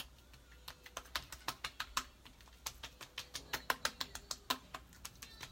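Palms and fingertips patting bare facial skin in quick, irregular light slaps, pressing toner into the skin. The pats come several a second, thickest in the second half.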